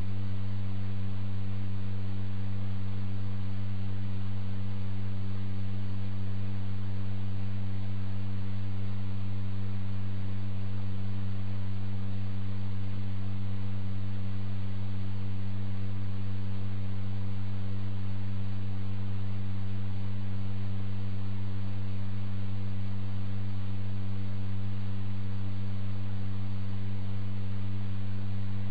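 Steady, unchanging low electrical hum, pitched near 100 Hz with a few higher overtones, over a faint even hiss.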